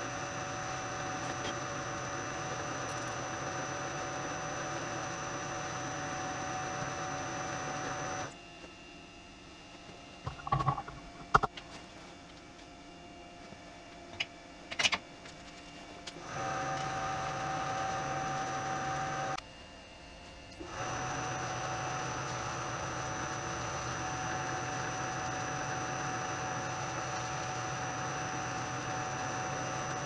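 Vertical milling machine running, its spindle motor giving a steady hum with a whine over it. It stops about eight seconds in, with a few knocks and clicks in the pause, runs again from about sixteen seconds, stops briefly, and runs on again from about twenty-one seconds.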